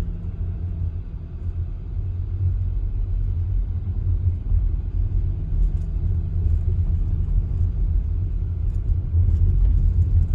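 Steady low rumble of a car driving slowly along a street: engine and tyre noise.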